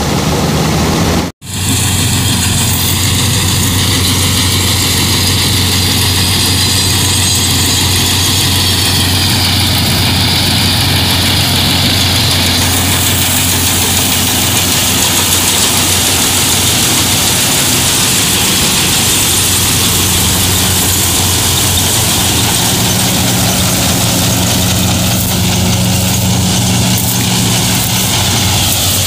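Sonalika 750 III tractor's diesel engine running a mini combine harvester: a steady engine hum under a loud, even rushing noise from the working machinery. The sound cuts out for an instant about a second and a half in.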